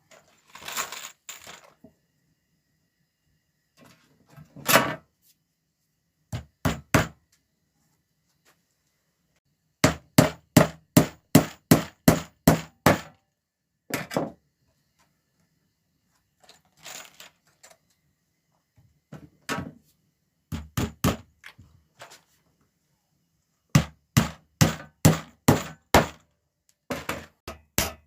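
Hammer driving nails into rough timber, fixing wooden pieces to a length of 2x3. It comes in runs of quick, even strikes, about three a second, with pauses and a little handling between the runs.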